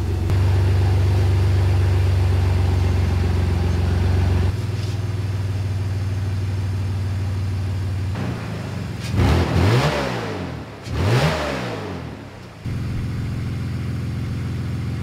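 BMW E46 325xi's M54 inline-six running at idle with a loud exhaust note, because the front of the exhaust is not bolted to the header and leaks there. Twice, about nine and eleven seconds in, the engine sound swells and sweeps in pitch as it is revved briefly, then settles back to a steady idle.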